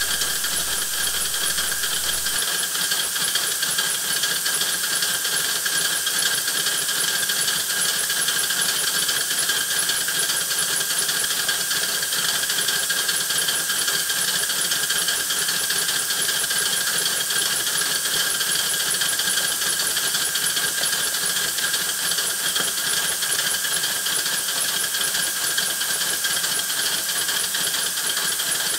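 Home-built 3/4-inch-scale Heisler geared locomotive running on compressed air instead of steam: a steady hiss of air exhausting from its cylinders along with the sound of its running gear. It is being run in to check its timing and lubrication.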